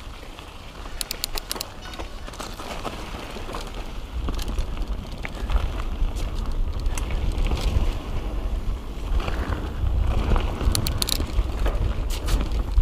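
Kona Process mountain bike riding down a dirt trail: tyres on the dirt and a low wind rumble on the camera microphone, growing louder about four seconds in as the bike picks up speed. Two short runs of rapid, sharp clicks cut through, one near the start and one near the end.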